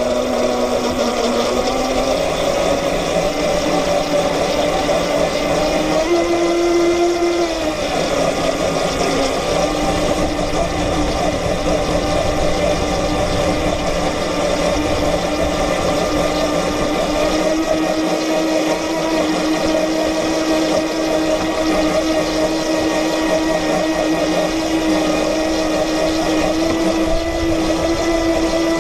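Radio-controlled model racing boat's motor whining steadily, heard close up from on board the hull, with water rushing along the hull. About six seconds in the whine climbs in pitch, then drops back a couple of seconds later as the throttle changes.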